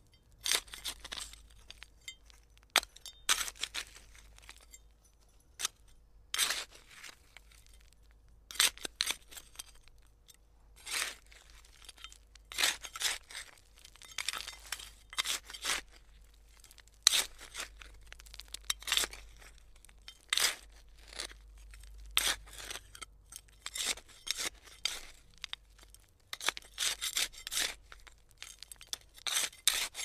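Hand trowel digging: a long series of short scrapes at uneven intervals, often coming in quick clusters of two or three.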